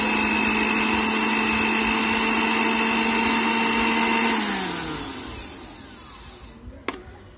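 Philips blender motor base, running again on newly fitted carbon brushes, spinning steadily with no jar on while its safety interlock switch is held down by hand. About four seconds in it is switched off and spins down, its pitch falling. A single sharp click comes near the end.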